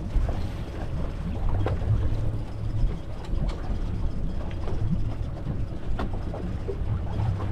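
Ambient sound aboard a small fishing boat at sea: a steady low rumble of wind and water, with a few sharp knocks.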